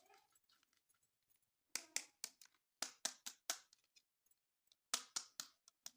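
Hands handling toy packaging: three short runs of sharp plastic clicks and crackles, with quiet between them.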